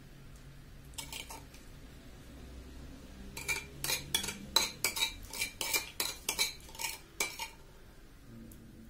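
A metal spoon tapping and clinking against a dish: a couple of light clicks, then about a dozen sharp, briefly ringing taps at about three a second, as the spoon spreads and knocks off a creamy topping.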